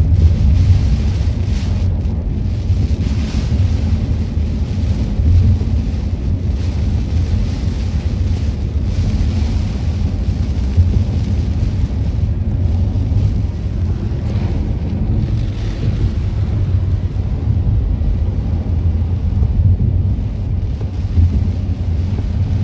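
Car cabin noise while driving through a tropical storm: a steady low rumble of wind buffeting and tyres on the wet road, with a hiss of heavy rain on the car.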